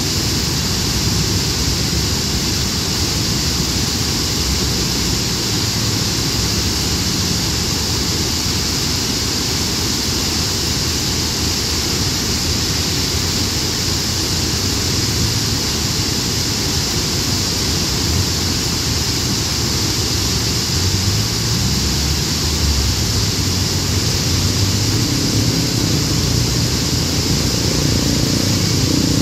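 Muddy floodwater of a swollen river pouring over a rock ledge and churning through rapids: a loud, steady rush of water.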